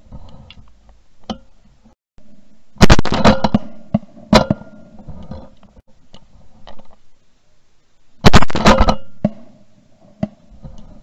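Shotgun shots heard from a camera mounted on the gun: one about three seconds in, a second about a second and a half later, and a third a little after eight seconds, each a sharp blast that fades quickly.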